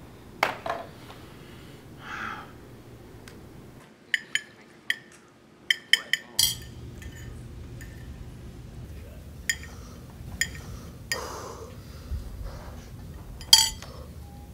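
Cutlery and dishes clinking on cafeteria trays and plates: scattered sharp clinks and taps, a quick run of them about four to six seconds in and the loudest near the end.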